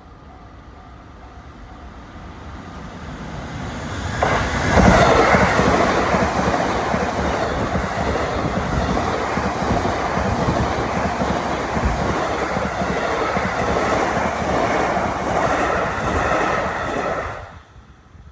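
A JR East E233 series 3000 electric commuter train, fifteen cars coupled from two sets, approaching and passing close by. The rumble builds over the first few seconds and turns suddenly loud about four seconds in as the train reaches the spot. It stays loud for about thirteen seconds and drops away sharply near the end as the last car goes by.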